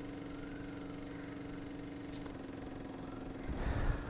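Steady low background hum with a held tone that shifts slightly in pitch twice, and a brief rustle with a few low thumps near the end.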